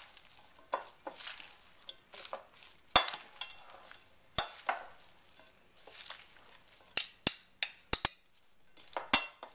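Utensils tossing a dressed salad in a large bowl: soft rustling of the leaves with irregular clicks and knocks of the utensils against the bowl.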